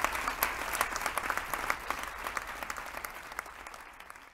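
Audience applauding, the clapping fading away steadily toward the end.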